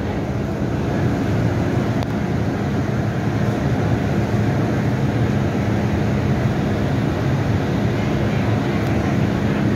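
MTR Tsuen Wan line M-Train leaving the station, heard from the platform as a steady rumble with a faint hum. It gets slightly louder in the first second.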